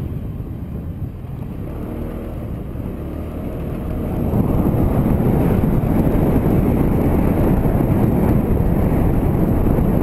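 Motorcycle engine running while riding, heard from the bike itself, with a dense low rumble; it gets louder about four seconds in and stays up.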